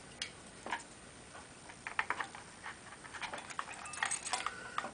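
Scattered light clicks and taps of hard plastic and metal as a CPU heatsink and fan is handled and set onto the processor on a motherboard, more frequent in the second half.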